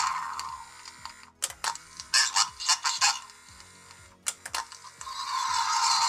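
Vintage Kenner Imperial Troop Transporter voice box, a small battery-driven record player, playing its stun rifle sound effect through its little speaker: several noisy, hissing zaps, one swelling and fading near the end, among sharp clicks from the record mechanism. Its needle-pressure screw has just been tuned so that the record plays at the right speed.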